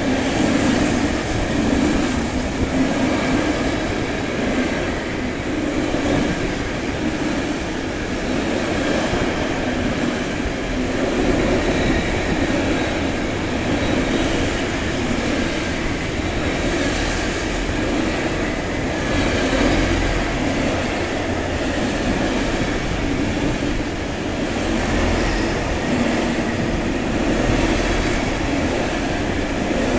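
A train running past, a steady, continuous rail noise that holds at an even level throughout.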